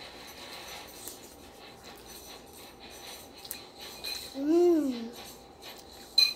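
Light clinking of metal forks and spoons on plates during a meal, with one short closed-mouth hum from a child that rises then falls in pitch about four and a half seconds in, and a sharper metal clink just before the end.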